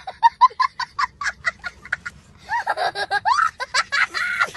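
A young boy laughing hysterically: a rapid string of short high-pitched laughs, several a second, then from about two and a half seconds in longer laughs that rise and fall in pitch.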